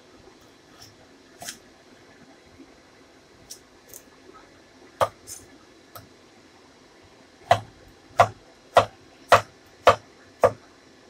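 A cleaver chopping through a long green vegetable onto a wooden chopping board: a few light scattered knocks, then from about seven and a half seconds in a steady run of six sharp chops, about two a second.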